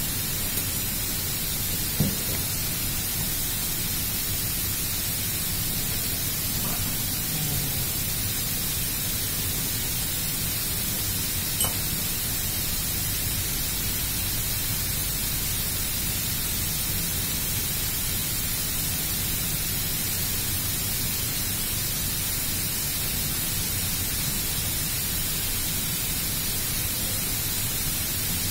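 Steady, even hiss with no tone in it, with two small clicks: one about two seconds in and one near the middle, as the small metal parts of the air cylinder are handled and its bolts fitted by hand.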